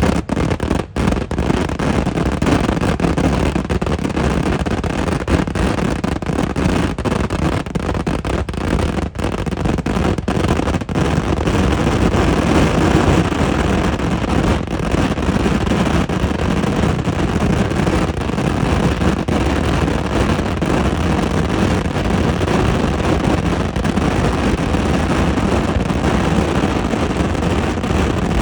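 Eeduvedi firework barrage: explosions following one another so fast that they merge into one loud, continuous rumble. Separate sharp blasts stand out during the first ten seconds or so, then the barrage runs on as a more even din.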